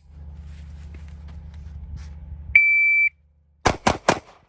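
A shot timer's start beep, one steady high tone about half a second long. About half a second later come three quick pistol shots from a 9mm Glock 26, fired within about half a second.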